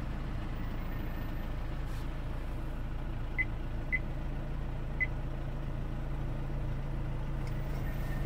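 Mercedes W212 E250's 2.2 four-cylinder diesel engine idling steadily just after a cold start, heard from inside the cabin. Three short high beeps sound about three and a half, four and five seconds in.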